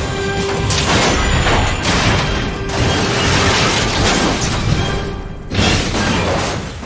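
Film action soundtrack: dramatic score under dense crashing and grinding metal as a train carriage derails. The sound dips briefly about five seconds in, then a heavy boom breaks in.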